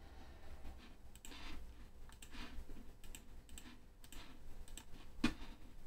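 Faint, irregular clicks of computer input as numbers are entered into a calculator program, with one louder click about five seconds in.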